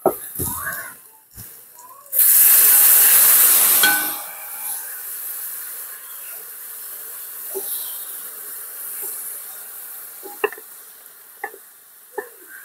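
Loud sizzle as liquid hits hot oil and fried onions in a wide aluminium pan, starting about two seconds in, then dying down to a softer, steady sizzle while the mixture is stirred with a wooden spatula. A few sharp knocks near the end.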